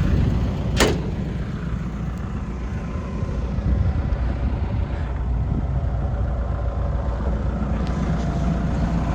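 John Deere 225D LC excavator's diesel engine idling steadily, with a single sharp knock about a second in.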